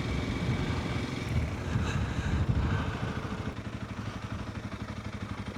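Motorcycle engine idling with a low, evenly pulsing rumble, easing slightly a little past halfway.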